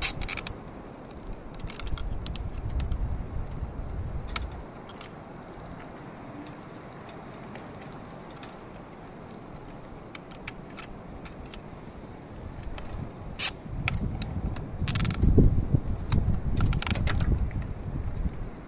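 Scattered metallic clicks, clanks and knocks, with low rumbling handling noise in between. There is no engine running.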